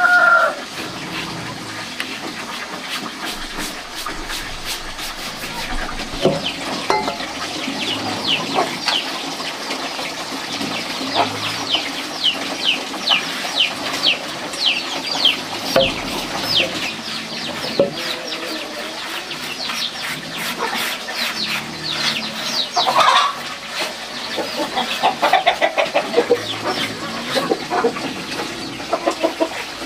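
Chickens clucking, with a long run of rapid, high, falling peeps through the middle.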